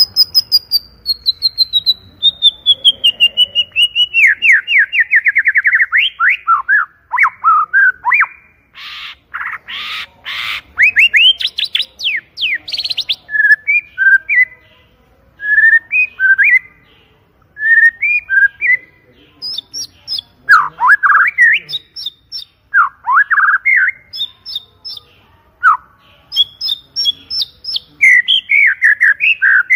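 White-rumped shama (murai batu) singing loudly and continuously: it opens with a fast run of notes that falls steadily in pitch over several seconds, then breaks into harsh rasping notes, rapid trills and short clear whistled phrases.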